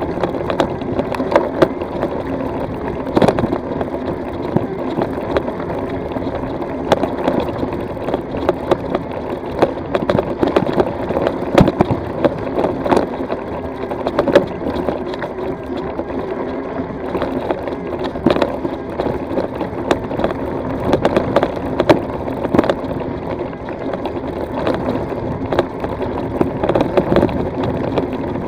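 E-bike tyres rolling uphill over a loose gravel and stone track: a steady crunching rumble with frequent sharp knocks and rattles as the wheels hit stones.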